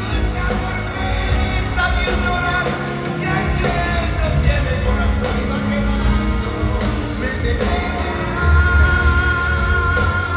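Live Latin pop concert music heard from within the arena audience: a full band playing with a male lead singer's voice over it.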